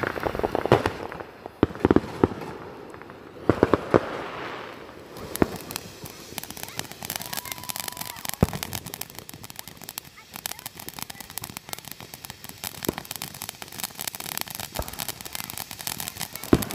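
Ground fountain firework spraying sparks and crackling. There are several loud sharp pops in the first four seconds, then a dense, steady run of small cracks with an occasional louder pop.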